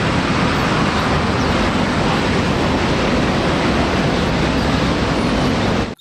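Double-decker bus driving slowly, its engine running steadily under a wash of road and traffic noise, cutting off abruptly at the end.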